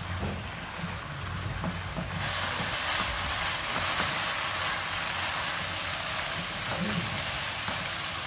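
Rice vermicelli stir-fry with cabbage and sausage sizzling in a frying pan as a spatula stirs and tosses it; the sizzle gets louder about two seconds in.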